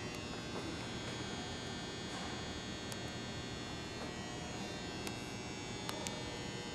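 Steady hum and buzz with a few faint ticks, no activity on the locomotive itself.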